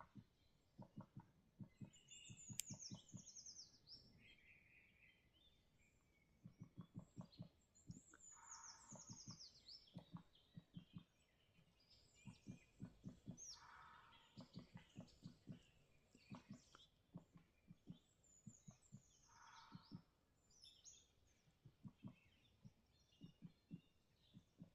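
Faint birdsong: a short, high, descending trill repeats every six seconds or so among other brief chirps and calls. Short runs of low, rapid pulsing sound in between.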